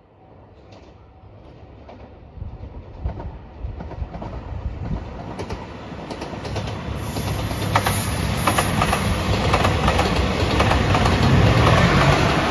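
JR Shikoku 2700 series diesel multiple unit approaching and passing close by, growing steadily louder, with sharp wheel clicks over rail joints about halfway through and a heavy rumble as it draws level.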